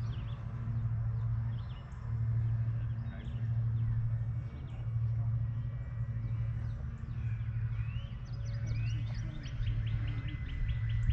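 Wild birds chirping and calling, with short rising whistles and a quick run of repeated notes near the end, over a low hum that swells and fades every second or two.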